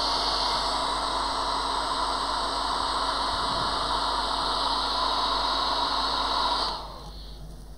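Hot air rework station blowing a steady hiss of hot air over an iPhone 6 Plus logic board; the airflow cuts off abruptly near the end.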